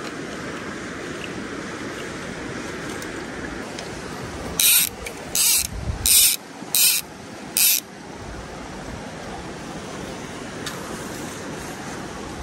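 A fly reel's ratchet buzzing in five short bursts less than a second apart, as line is pulled off it by hand. Under it the small creek rushes steadily.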